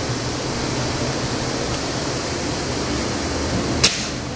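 Steady rushing background noise with a faint low hum, and a single sharp click about four seconds in.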